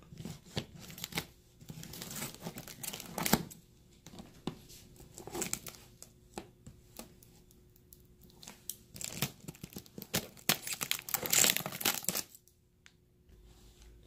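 Clear packing tape and plastic wrap on a cardboard box being cut with scissors and torn open, crinkling in irregular bursts. The longest, loudest tear comes about eleven seconds in, after which it goes quiet.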